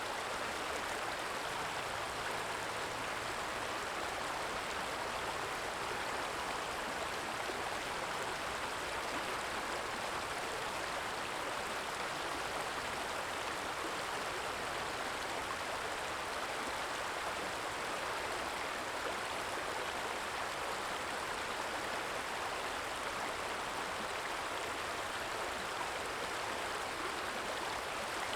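Small stream trickling over stones, a steady even rush of flowing water.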